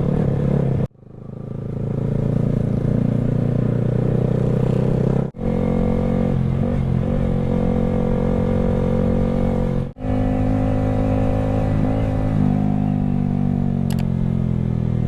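Motorcycle engine running at a steady pace while riding. The sound drops out abruptly three times: about a second in, around five seconds, and around ten seconds. The engine pitch sinks slowly near the end as it slows.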